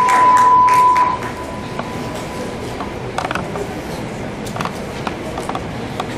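Steady test-tone beep played over the hall's speakers with a colour-bar card at the end of a projected video, cutting off about a second in. After it comes the hall's background noise with scattered small clicks and knocks.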